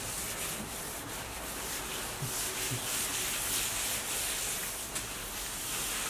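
Paper towel wiping a wooden tabletop, a steady rubbing hiss.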